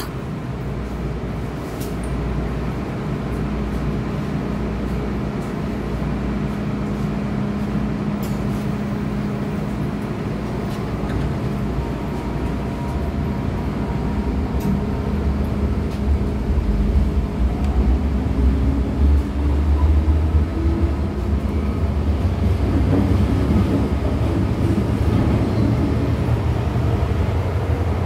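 MTR M-Train electric multiple unit running on the Island Line, a continuous rumble of wheels and running gear with a steady hum. About two-thirds of the way through, the rumble grows louder and a short rising whine climbs.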